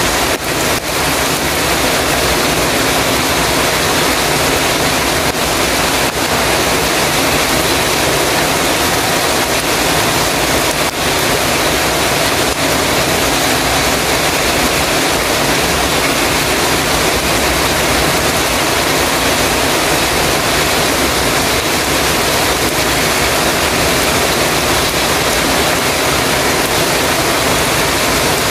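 Heavy rain falling on a metal roof: a dense, steady hiss.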